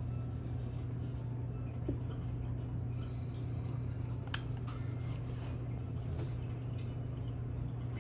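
Steady low hum of an air conditioner running, with a single sharp click about four seconds in.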